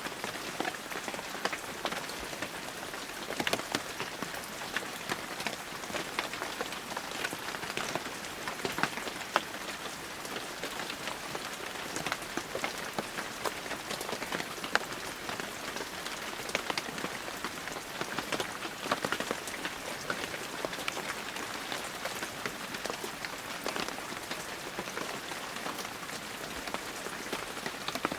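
Steady heavy rain, many drops pattering on surfaces, a dense hiss with countless sharp drip clicks and no letup.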